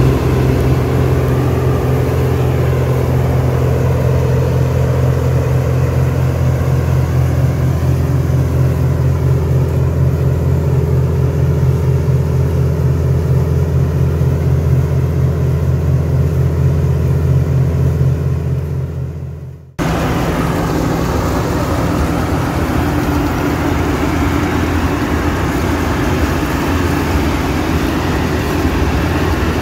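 Claas Dominator 98 SL combine harvester running under load while cutting and threshing wheat: a steady deep engine drone with a fast, regular pulsing. The sound fades out a little past halfway and comes back abruptly, noisier, for the rest.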